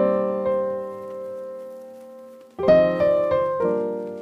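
Background piano music: a chord rings and slowly fades, then a new run of notes starts a little over halfway through.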